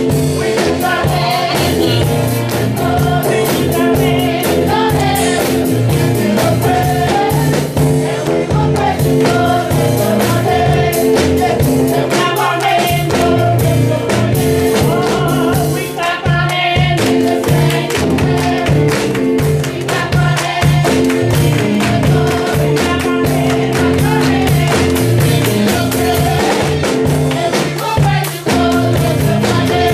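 Gospel music: voices singing over a band with a steady beat.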